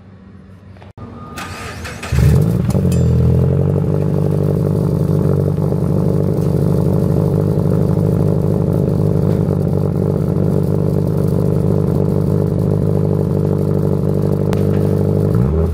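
2013 Subaru BRZ's flat-four boxer engine starting from the push button: the starter cranks for about a second, the engine catches with a brief flare in revs, then settles into a steady idle heard at the tailpipe. The revs rise and fall briefly near the end. The owner judges the motor healthy and the exhaust not too loud.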